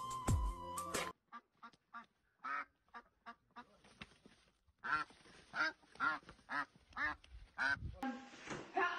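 A string of short, separate animal calls, about two or three a second, growing louder about five seconds in. A burst of music cuts off about a second in, and voices begin near the end.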